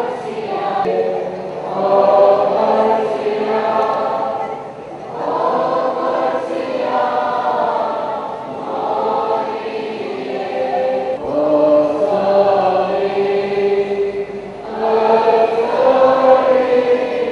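A choir of many voices singing a church hymn together, in phrases of a few seconds each with short breaks between them.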